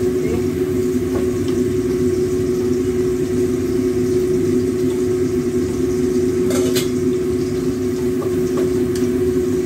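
Steady mechanical hum holding two or three fixed tones over a low rumble, with a brief metal clatter of the spatula in the wok about six and a half seconds in.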